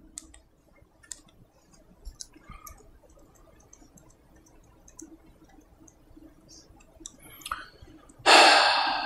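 Scattered faint clicks of laptop keys being pressed to step presentation slides back and forth, the slide advance not working right. A short, louder sound comes near the end.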